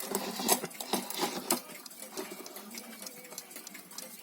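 Vityaz alarm clock's mechanism clattering rapidly for about a second and a half, then a few scattered clicks.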